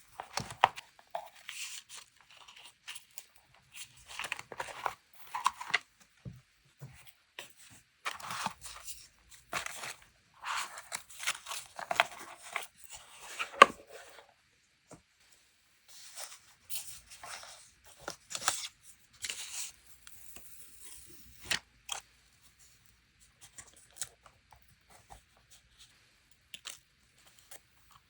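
Paper being handled for a scrapbook journal page: irregular crisp rustling and tearing strokes with sharp clicks. Busy through the first half, then a short pause about halfway, then sparser strokes.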